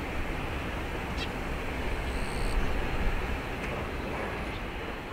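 Steady rumble and hiss of a jet airliner taxiing, a JAL Airbus A350-900, at an even level throughout.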